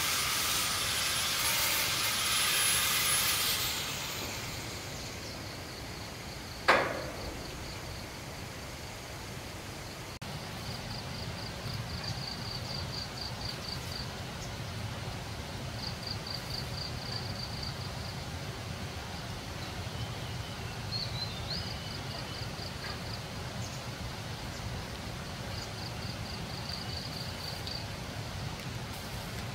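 A rough scraping noise that fades out a few seconds in, then a single sharp knock with a short ring. After that a steady low rumble, with faint rapid high chirps coming in runs.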